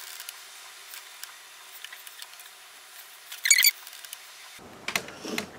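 Light handling noises: scattered faint clicks, with a short scratchy squeak about three and a half seconds in, from makeup supplies being handled.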